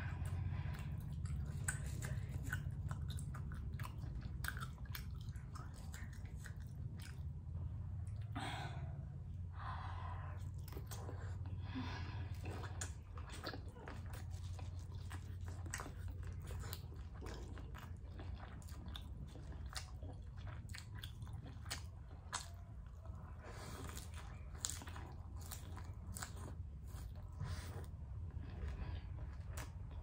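Chewing and biting of steamed squid and lettuce, with many short wet mouth clicks and smacks and a few louder crunchy bursts. A steady low hum runs underneath.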